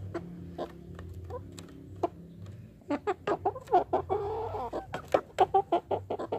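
Chickens clucking: a few faint clicks at first, then, about three seconds in, a quick run of short clucks with one longer, wavering call in the middle.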